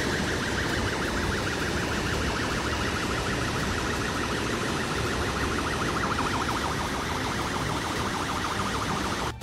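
Loud, steady roar of rushing floodwater, with a high, fast-pulsing siren-like alarm tone sounding over it throughout.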